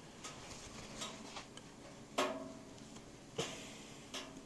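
About six light, sharp clicks and taps as pistons and rings are handled on an open four-cylinder motorcycle engine. The loudest, about two seconds in, is a metallic clink with a short ring after it.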